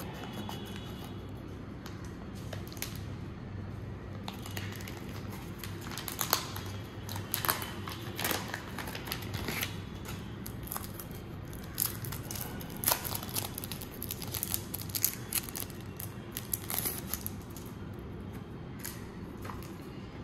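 Trading card pack and cards being handled by hand: irregular crinkling and sharp crackles of packaging, thickest in the middle, over a steady low hum.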